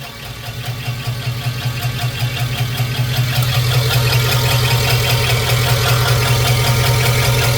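GM 5.3 LS V8 idling with a rhythmic squeaking tick, several a second, over a steady engine hum. This is the noise of a spun bearing or lifter failure, later put down to cheap lifters and lifter trays.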